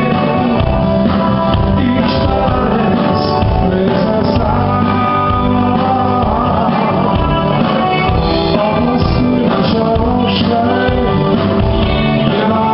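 Live rock band playing electric guitars, drum kit and keyboard, with a man singing.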